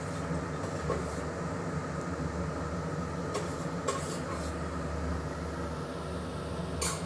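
Steady low mechanical hum of kitchen background noise, with a few light clicks about halfway through and another near the end.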